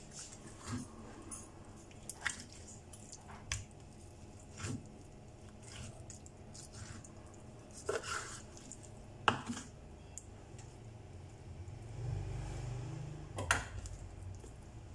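Kitchen knife cutting and trimming raw chicken breast on a wooden cutting board: scattered soft wet squishes of the meat and sharp taps of the blade on the board, the loudest about nine seconds in. A low rumble of handling about twelve seconds in, as the meat is moved on the board.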